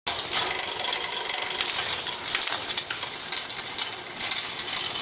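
Bicycle drivetrain on a Cervélo carbon bike running: chain whirring over the gears with fast, steady ratcheting clicks.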